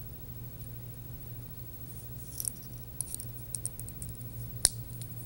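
Small metallic clicks and ticks of steel split rings being pried open with split ring pliers and worked onto a metal scale, scattered and irregular, with one sharper click near the end. A steady low hum lies underneath.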